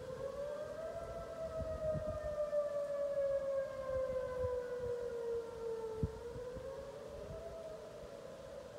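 Whelen outdoor warning siren sounding its wail: a steady tone that rises about a second in, falls slowly over about five seconds, then rises and starts falling again near the end.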